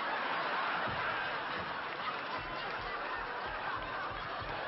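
Large audience laughing steadily at a punchline.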